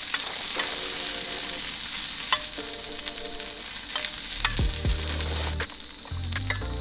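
A hot sandwich frying in a 4w1h Hot Sand Solo hot sandwich maker: a steady sizzling hiss with small pops now and then.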